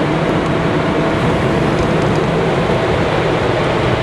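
Claas Lexion combine's engine and cooling fan running steadily, heard close to the rotary radiator screen. The screen had been stuck by wet chaff, which stopped the fan turning and let the engine run hot.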